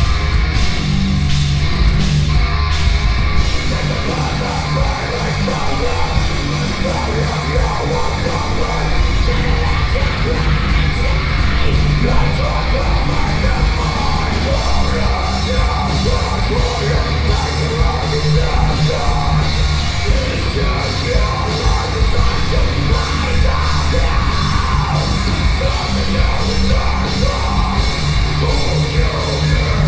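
Heavy metal band playing live: distorted electric guitars and a pounding drum kit under a harsh screamed vocal.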